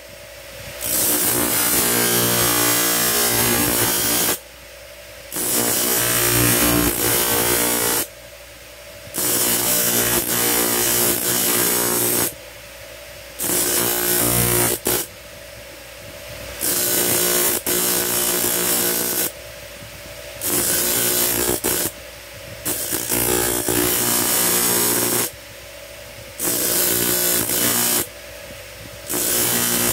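Electric motor-driven grinding wheel grinding a small steel gaff blade in repeated passes. A harsh grinding hiss rises each time the blade is pressed to the wheel for a few seconds, then drops back to the steady motor hum in short breaks of about a second.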